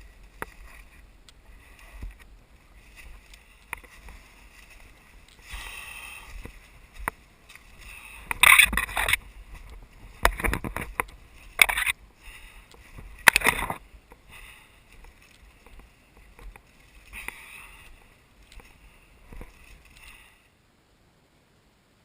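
Someone pushing on foot through thick forest undergrowth: branches and leaves swish against the body and feet crunch in the leaf litter in irregular loud bursts, the loudest in the middle, over a faint steady high drone. The sound cuts off abruptly near the end.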